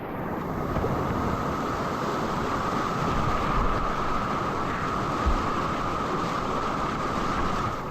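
Rushing whitewater of a river in flood, heard from a kayak on the water: a steady, loud rush, with a couple of brief low thumps about five seconds in.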